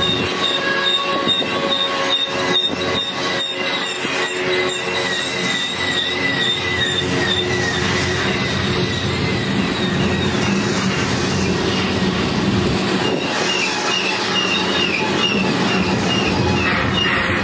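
Tank cars of a freight train rolling past, their wheels squealing in several high, slightly wavering tones over the steady rumble of the cars, with a run of clacks about two to three seconds in.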